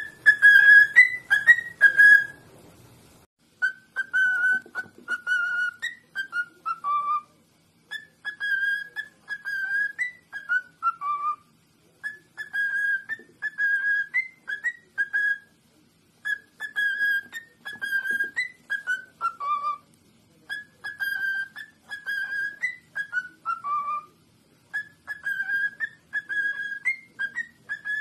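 Cockatiel whistling a learned tune: a short phrase of clear, even notes ending in a falling run, repeated about six times at roughly four-second intervals.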